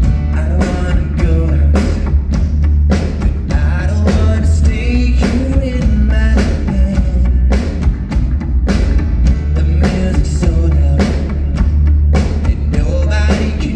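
Live band playing a rock song at full volume, with a drum kit keeping a steady beat over heavy bass and a melody line on top.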